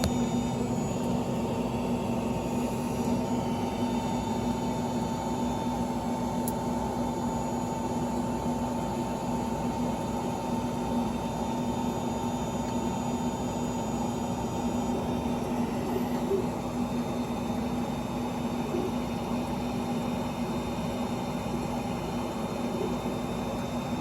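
Creality Ender 3 3D printer running, its fans giving a steady hum with a couple of faint steady tones.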